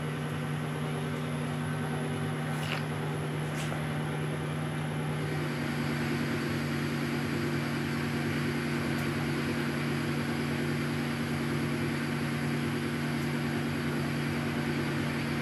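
1972 Weiler Matador SV lathe running at 600 rpm with a steady gear hum. About five seconds in, a hiss is added to the hum as the roughing insert takes a 1 mm cut on the 25 mm bar under power feed.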